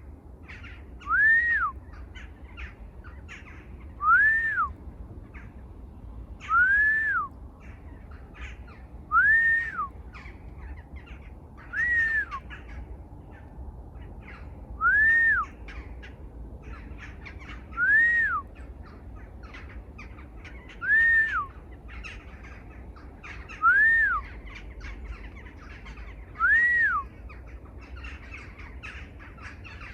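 A bird calling a single clear whistled note that rises and falls back, repeated ten times at roughly three-second intervals. There is a steady low background rumble and faint high chirps.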